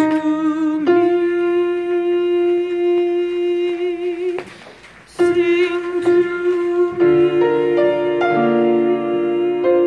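A single alto voice sings a choral part in long, held notes. There is a quick breath about halfway through. Lower accompanying notes come in under the voice for the last few seconds.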